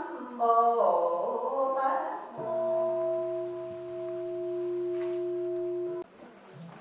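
Several voices chanting together in a Buddhist ceremony for about two seconds, then a long steady tone held for about three and a half seconds that cuts off abruptly.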